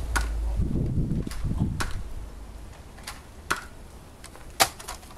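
A Nerf blaster fired repeatedly at close range: several sharp snapping shots at uneven intervals, the loudest near the end, with a low rumble in the first second or so.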